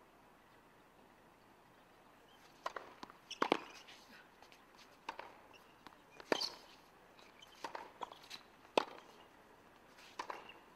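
Tennis rally on a hard court: sharp pops of racket strings striking the ball and the ball bouncing, one every second or so, starting about two and a half seconds in. The loudest hits come roughly every two and a half seconds.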